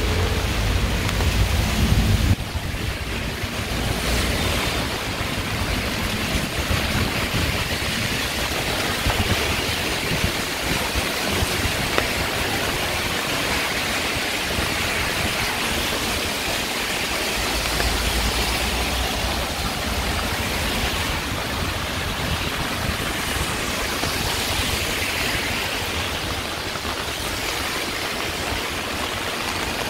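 Heavy rain falling steadily, a continuous hiss with no breaks. A deeper low rumble swells under it in the first two seconds and again about midway.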